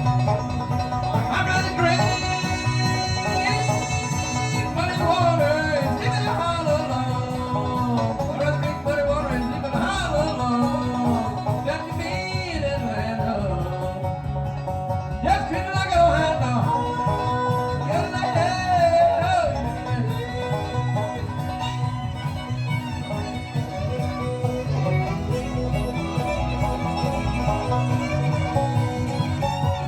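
Live bluegrass band playing, with banjo and guitar picking and a lead melody that slides in pitch.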